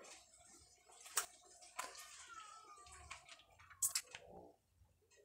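Plastic cup of bottled drinking water being handled and opened: a few sharp plastic clicks with crinkling in between.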